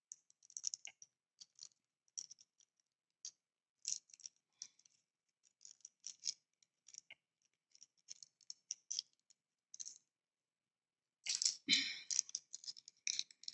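Small screwdriver turning a tiny screw into a model car kit's chassis: faint, irregular clicks and scratches of the bit working in the screw head. A louder flurry of clicks and rattling comes near the end.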